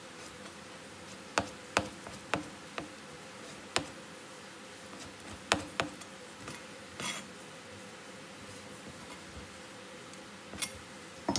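Chef's knife chopping down onto a plastic cutting board while dicing boiled pig heart: about ten sharp, single knocks at irregular intervals, over a steady faint background hum.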